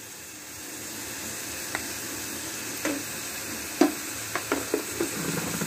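Shrimp, onion, garlic and green chillies frying in oil in a black kadai, sizzling steadily as the spice base with freshly added turmeric cooks. A metal spatula stirs it, with several short scrapes and knocks against the pan.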